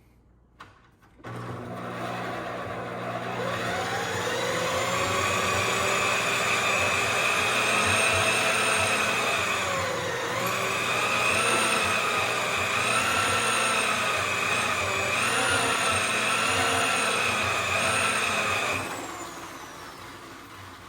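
Electric wire-stripping machine's motor starting about a second in and running with a steady whine while copper cable is fed through to strip its insulation. The pitch dips briefly about halfway, then it switches off and winds down near the end.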